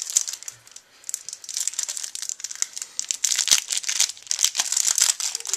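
Yu-Gi-Oh booster pack's foil wrapper crinkling and tearing as hands pull it open: a dense run of sharp crackles. It eases off briefly about half a second in, then goes on steadily.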